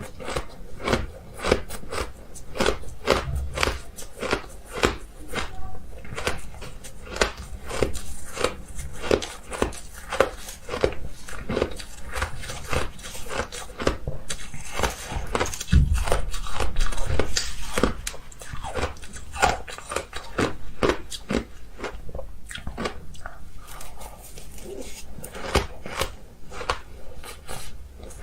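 Ice being bitten and chewed close up, a steady run of sharp crunches about two to three a second, with a louder stretch of crunching about halfway through.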